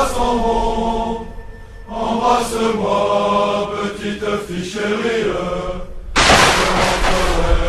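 Music with long held, chant-like melodic notes. About six seconds in, a sudden loud blast of rushing noise like an explosion cuts in over it and keeps going.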